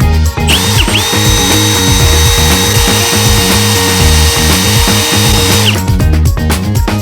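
A power tool, most like a drill, running for about five seconds over background music with a steady beat. It starts about half a second in, briefly slows and comes back up to speed, holds a steady whine, then stops near the end.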